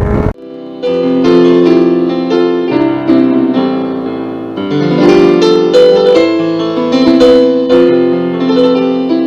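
Piano music, a run of struck notes in a steady flowing pattern, starting abruptly just after a split second of engine and wind noise cuts off.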